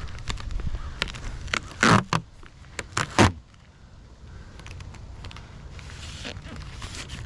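Greenhouse repair tape being pulled off its roll in two short, loud rips about two and three seconds in, amid rustling as the tape and plastic are handled.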